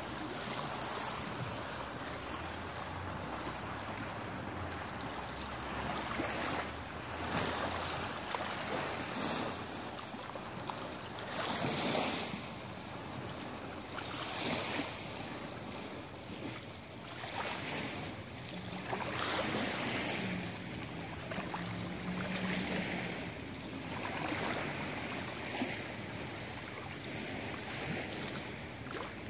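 Lake water lapping against a rocky shoreline, small waves washing in and swelling irregularly every few seconds.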